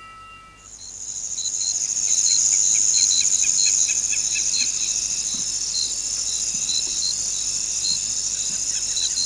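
Recorded crickets chirping: a steady high trill with short repeated chirps under it, fading in during the first second.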